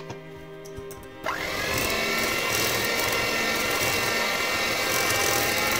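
Electric hand mixer switched on about a second in, its motor whine rising quickly and then running steadily as the beaters mix red gel food colouring into cake batter.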